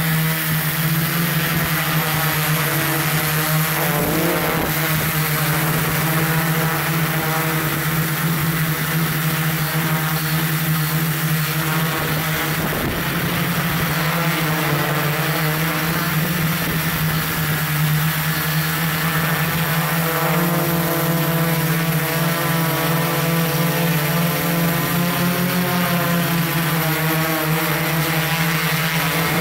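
Multirotor drone's electric motors and propellers running steadily, a loud buzzing hum picked up close by the camera it carries, its upper tones wavering slightly as the motors adjust.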